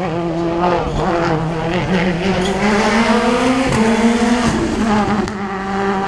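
A rally car's engine revving hard out of sight, its pitch climbing and dropping back several times as it shifts gear, with a few sharp cracks along the way.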